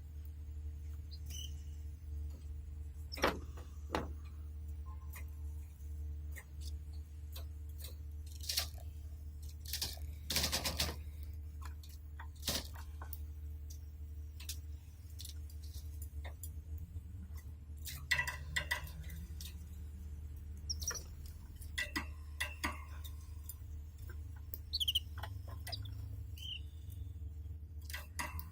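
Pet canaries moving about their cage: scattered clicks and rustles, a short burst of rustling about ten seconds in, and a few brief chirps in the second half, over a steady low hum.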